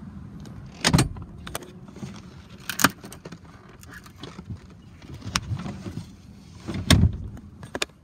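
Rear seat of a 2008 Ford Expedition being worked by hand to fold it and pop it back up: sharp clunks and clicks of its latch and hinges, loudest about one second in, near three seconds and near seven seconds, with lighter clicks and rustling between.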